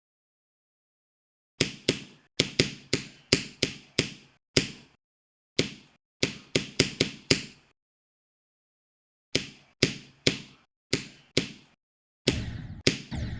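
A series of sharp clicks, each dying away quickly, coming in irregular runs of a few per second with dead silence between the runs. Near the end the clicking turns denser and fuller.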